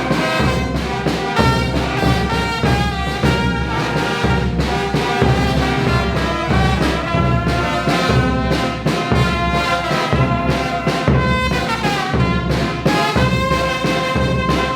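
Mexican brass band (banda) playing: trumpets and trombones carrying the melody over a steady rhythmic beat of bass and percussion.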